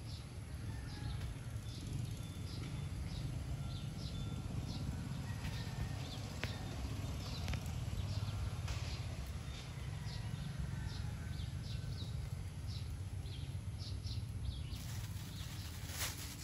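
Steady low outdoor rumble with short high chirps repeating about twice a second. About a second before the end, the sharp crinkling of a clear plastic bag being handled by a long-tailed macaque comes in.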